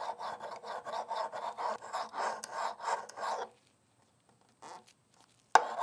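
Rapid back-and-forth scraping strokes, about four a second, as excess hard fill-stick filler is worked off a wood veneer table surface. The scraping stops about three and a half seconds in, and a short sharp noise comes near the end.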